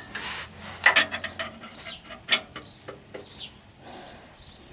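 Metal hand tools clinking and clattering, a series of sharp clicks, the loudest about a second in and again a little past two seconds, as a wrench is picked out from among others.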